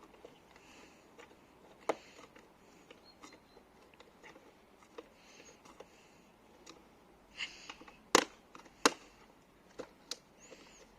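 Hands working on a car's plastic side-mirror housing: scattered clicks and snaps, three sharp ones about two, eight and nine seconds in, with short soft scraping and rubbing between.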